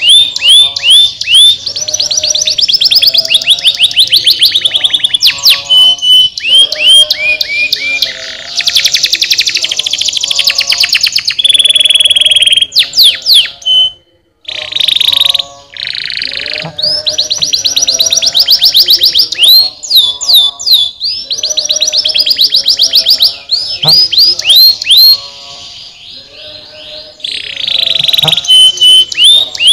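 Domestic canary singing a long, loud song of fast trills and rapid downward-sweeping whistled notes, with a brief pause about halfway through.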